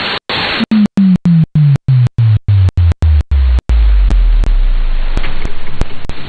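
Shortwave radio static hiss on a received AM signal, chopped by about a dozen brief dropouts. A low tone steps down in pitch over the first three and a half seconds and holds low until about five seconds in; after that there is steady hiss with a few sharp clicks.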